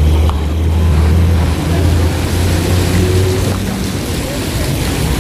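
Diesel tour-coach engines running close by with a low rumble, over the steady hiss of rain and water on the wet street. The rumble eases a little near the end.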